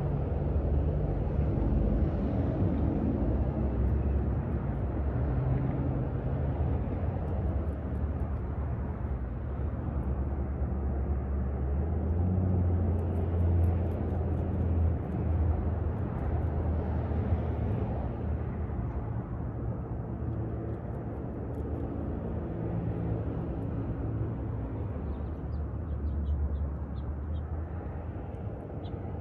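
Steady low rumble of distant engine noise, swelling and easing in loudness, with a few faint high ticks near the end.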